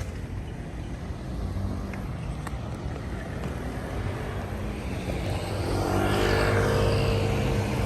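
Street traffic rumbling, with a motor vehicle passing close and growing louder over the last couple of seconds.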